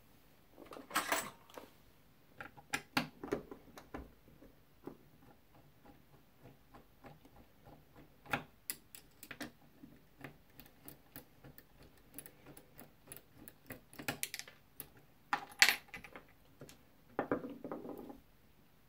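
Small metallic clicks and clinks of a Mul-T-Lock Junior lock cylinder and its pins being worked with a thin pin tool over a wooden pinning tray, in scattered clusters, the sharpest clatter about three-quarters through.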